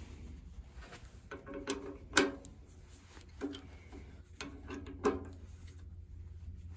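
Drill press chuck being tightened on a drill bit with a chuck key: a few sharp metal clicks and taps with brief ringing, the loudest about two seconds in, over a low steady hum.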